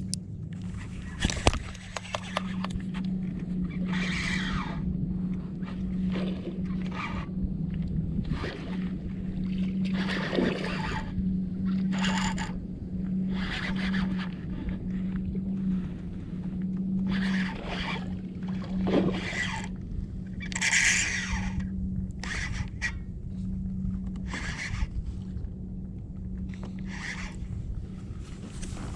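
Water splashing and scraping against a kayak in short irregular bursts, over a steady low hum.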